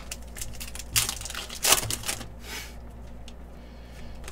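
Foil wrapper of a trading card pack crinkling and tearing as it is pulled open, in a few short crackling bursts; the loudest comes about a second and a half in.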